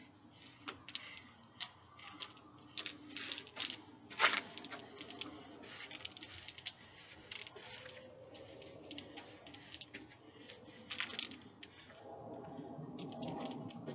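LED hoop swishing and tapping against the body and clothes during hooping: irregular light rustles and clicks, with sharper taps about four and eleven seconds in.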